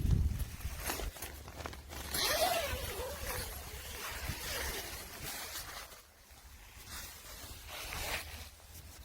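A zipper being pulled, rasping loudest about two seconds in, among scattered rustles and light knocks of fabric and gear.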